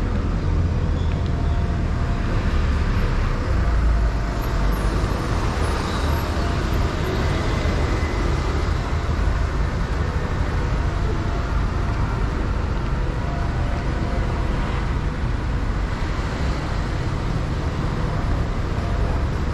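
Steady street traffic noise from the road alongside: a continuous low rumble of passing vehicles.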